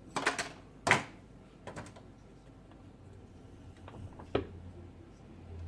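Sharp clicks and knocks of small steel parts from an NP208 transfer case being handled and set down during its teardown: several close together in the first two seconds, the loudest just under a second in, and two more around four seconds in.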